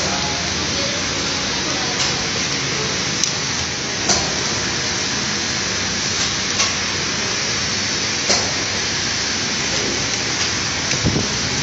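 Steady, even hiss of background noise with a few sharp clicks spaced a second or two apart.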